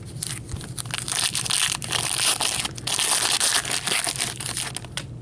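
Foil wrapper of a hockey card pack crinkling and tearing as it is ripped open by hand, a dense crackle that dies down just before the end.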